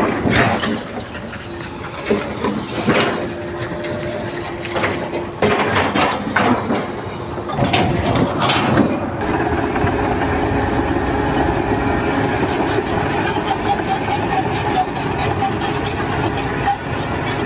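Heavy machinery running, with a steady hum and whine. Repeated knocks and clanks come through the first half, and after that the running is steadier.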